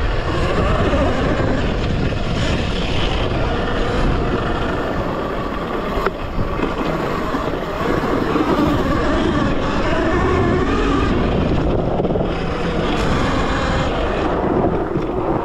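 Talaria Sting electric dirt bike, its stock motor running on a 72 V battery and Nucular controller, ridden hard off-road: the motor's whine wavers up and down with the throttle under wind noise on the microphone.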